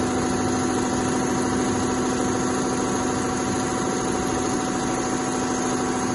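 Richpeace two-head CNC leather sewing machine stitching: a steady mechanical hum with a rapid, even chatter of needle strokes.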